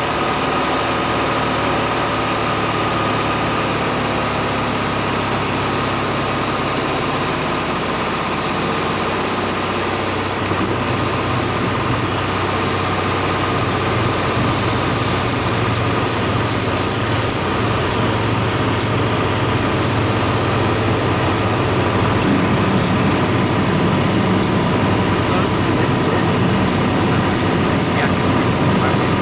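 Cabin noise of a Piper Comanche 250 landing: the six-cylinder Lycoming engine running at low power with the propeller turning, heard from inside the cockpit. A lower, steadier rumble grows from about a third of the way in as the plane rolls out on the runway.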